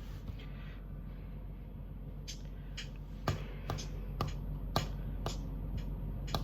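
Sharp clicks keeping a steady beat, about two a second, starting a couple of seconds in over a low steady hum, setting the tempo just before the singing starts.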